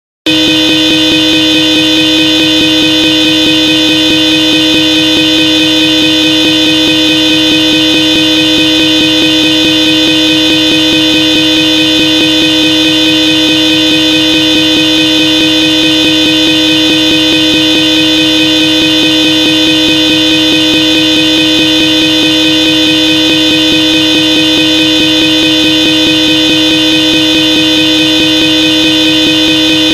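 Hella Supertone twin-trumpet electric car horns blowing one long, steady blast, two notes sounding together as a chord without a break.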